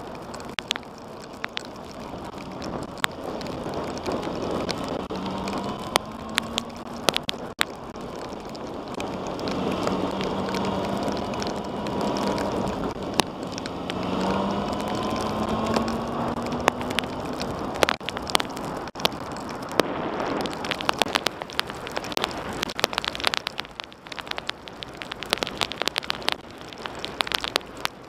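Raindrops ticking sharply on a motorcycle-mounted action camera over a steady rush of wind. Underneath runs the Yamaha FZ6's inline-four engine, its note rising twice as the revs climb.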